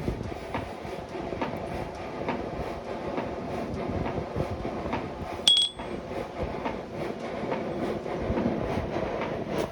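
A machine runs with a steady rumble and regular clicking, and one loud, sharp, ringing metal strike comes about halfway through.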